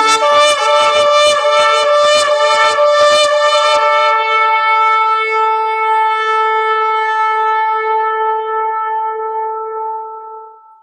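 Shofar blown in one long blast. For the first few seconds the note pulses quickly, about three times a second, then it settles into a long steady held tone that fades away near the end.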